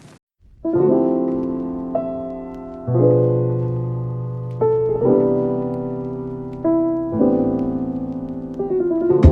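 Background piano music: sustained chords struck about every two seconds, each ringing and fading, starting just after a short gap at the beginning.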